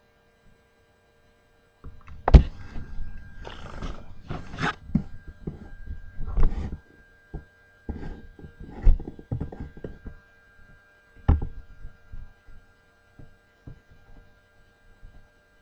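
Irregular thumps and knocks over a steady electrical hum. They come in clusters from about two to seven seconds in, the loudest early in the run, with a last strong thump about eleven seconds in and only faint ticks after.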